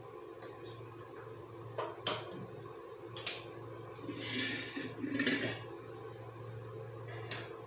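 Gas stove burner being lit: two sharp clicks a little over a second apart, then two short hissing noises as the flame comes on. A steady low hum runs underneath.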